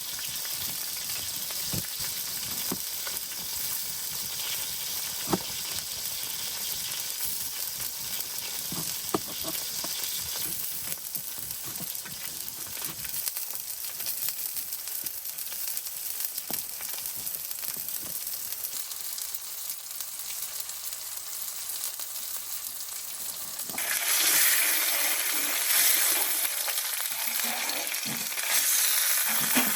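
Food sizzling steadily in a hot pan, with scattered light clicks; the sizzle gets louder about three-quarters of the way through.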